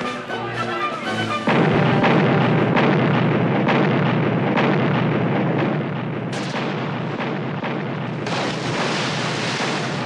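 Film battle soundtrack: music, then about one and a half seconds in a sudden loud blast of sailing-warship cannon fire that carries on as a dense barrage with repeated shots, and another loud burst near the end.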